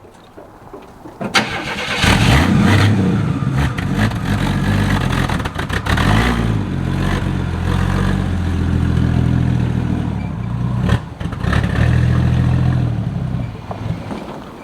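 Six-cylinder engine cranking and firing up, then running loudly for about eleven seconds, dropping briefly near eleven seconds before picking up again and fading near the end.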